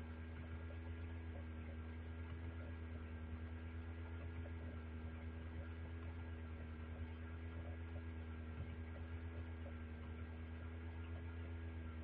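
Steady electrical mains hum with a stack of even overtones, unchanging throughout.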